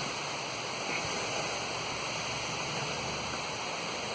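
Waterfall rushing steadily, an even wash of water noise.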